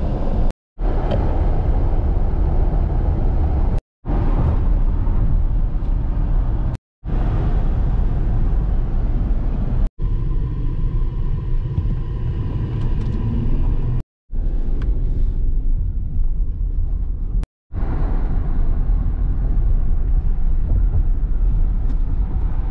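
Road and engine noise heard inside a moving car's cabin: a heavy, steady low rumble with a hiss above it. It comes in several short stretches that cut off abruptly every few seconds.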